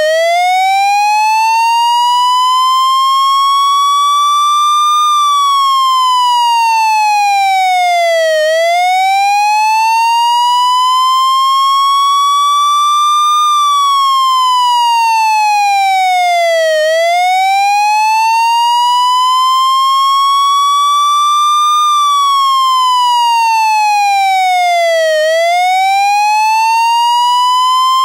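Taiwanese fire engine siren sounding a slow wail: the pitch rises steadily for about five seconds, then falls for about three and a half, over and over, about three times.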